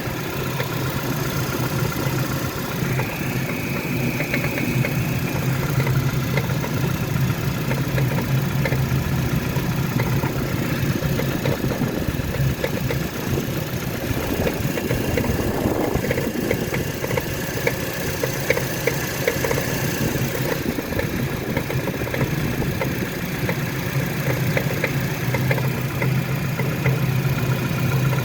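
Renault Kaptur 2.0-litre engine idling cold, with an irregular light ticking under the bonnet, somewhere between a squeak and a tap, most noticeable in the second half. This is the extraneous noise that appears about thirty seconds after a cold start and fades as the engine warms.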